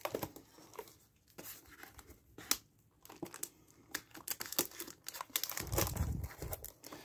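Plastic wrapping on a trading-card blaster box crinkling and tearing as it is pulled open, in irregular crackles. A low rumble of the box being handled comes in near the end.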